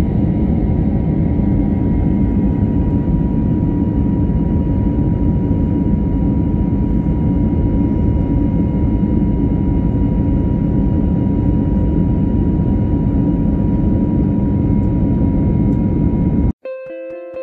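Steady jet engine and airflow roar heard inside the cabin of an Airbus A320 in flight, with a faint steady whine over it. Near the end the roar cuts off suddenly and plucked music notes begin.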